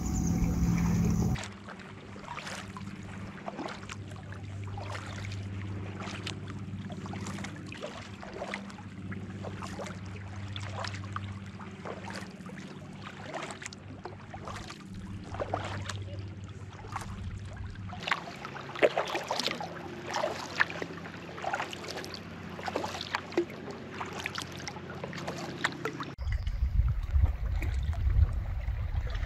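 Sea kayak paddling: water splashing and dripping off the paddle blades in irregular strokes over a steady low hum. Near the end it cuts abruptly to a louder low rushing noise.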